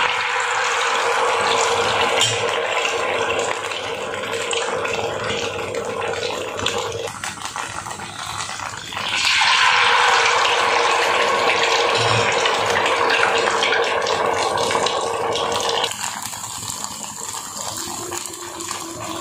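Malpua batter frying in hot desi ghee in a kadhai: a steady sizzle. It swells about nine seconds in, as another ladleful of batter goes into the ghee, and drops back near the end.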